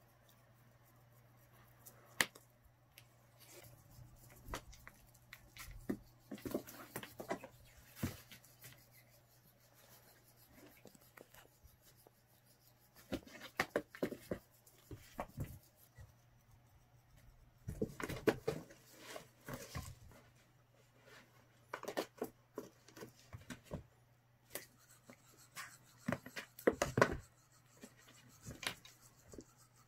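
A cat playing on its own with a small toy mouse on a wooden floor and in a cardboard box: scattered bursts of scratching, scraping and light taps from paws, the toy and the cardboard, over a faint steady low hum.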